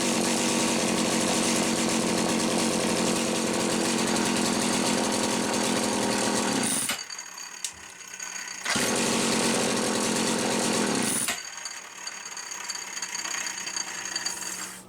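Homelite 360 chainsaw's two-stroke engine held at high revs, dropping back to a low speed about seven seconds in, revved up again, and dropping back once more about eleven seconds in before it is shut off at the very end. It runs steadily with its carburetor bushing now correctly installed; the misaligned bushing had let it suck air and starve it of fuel.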